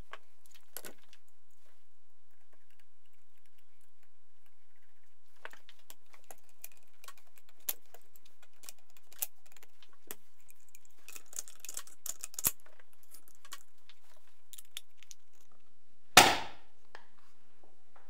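Metal parts of an AK-105 rifle being handled and fitted back together after a rear sight rail install: scattered small clicks and rattles, then one loud, sharp metallic clack with a brief ring near the end.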